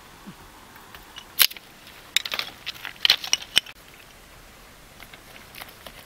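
A few sharp clicks and knocks: a single loud one about a second and a half in, then a quick cluster between about two and three and a half seconds in.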